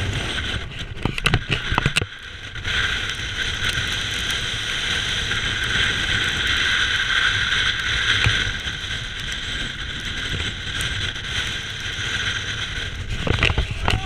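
Strong wind buffeting the camera microphone: a heavy low rumble with crackling jolts for the first couple of seconds, then a steadier rushing hiss of wind until near the end.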